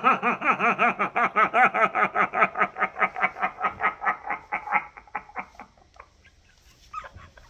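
A man laughing hard: a long run of quick, rhythmic 'ha-ha' sounds, several a second, that tails off about five seconds in.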